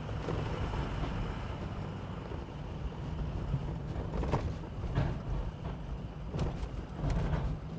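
Ford F350's 6.0L V8 turbodiesel and road noise heard from inside the cab while driving: a steady low rumble with a few light knocks. The engine is running after a crank-no-start repair.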